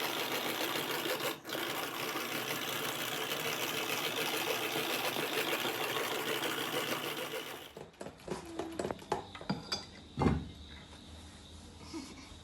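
Electric hand mixer running steadily as it beats pancake batter, stopping abruptly about eight seconds in. After that come a few scattered light knocks and clicks of kitchen utensils.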